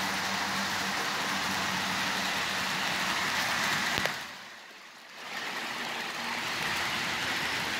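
HO-scale model trains running: a steady whir of the Stewart Hobbies locomotive motors and wheels rolling on the track. A sharp click about four seconds in, then the sound briefly drops away for about a second before returning.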